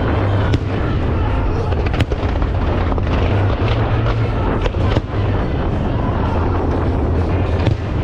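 Aerial fireworks shells bursting in a display: a series of sharp bangs at uneven intervals over a steady low rumble.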